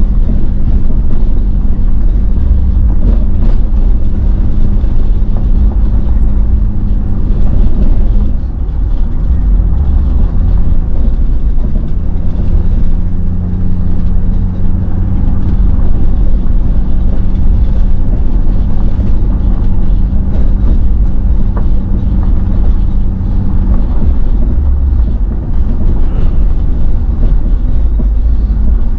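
Car driving, heard from inside the cabin: a loud, steady low rumble of engine and tyres on the road, with an engine hum that breaks off about eight seconds in, returns a few seconds later and drops away a few seconds before the end.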